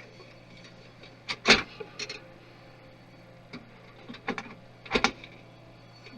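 Sharp clicks and knocks of computer parts being handled during a desktop PC disassembly, scattered irregularly. The loudest comes about one and a half seconds in and another near five seconds, over a faint steady low hum.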